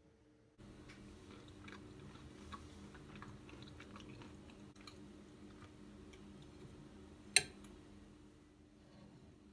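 Someone chewing food, with small irregular crunching and mouth clicks, and one sharp click about seven seconds in.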